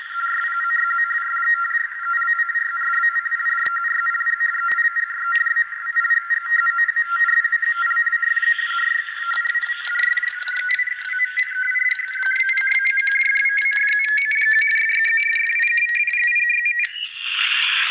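Shortwave transceiver's receiver audio: two steady whistling carrier tones in a narrow, tinny passband over crackling static. About halfway through, both tones slowly rise together in pitch, as they do when the receiver is tuned across them. A burst of band noise comes near the end.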